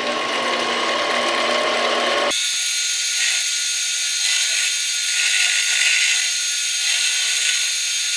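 Harbor Freight 7x10 mini lathe running with a steady motor and gear whine while its tool cuts a chamfer on a metal part. About two seconds in, the sound switches abruptly to a sped-up version, six times faster, with the whine higher in pitch and the low end gone.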